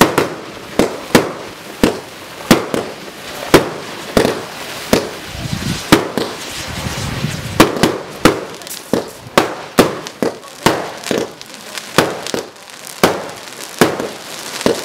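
Broekhoff Extreme consumer fireworks firing shot after shot: a rapid run of sharp bangs, about two to three a second, with a brief lull around the middle.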